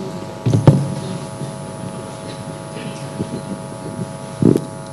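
Steady electrical hum from the microphone and amplifier, with a couple of brief thumps, one about half a second in and one near the end.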